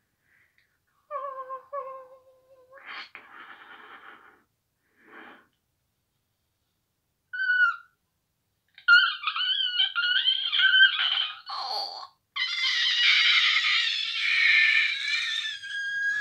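High-pitched blown squeals and wheezy tones made at the mouth through a cupped hand: a few short notes and breathy puffs, then wavering shrill tones from about nine seconds in and a long, wheezy, several-toned blast near the end.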